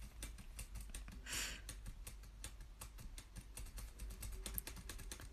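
Faint typing on a keyboard: quick, irregular key clicks.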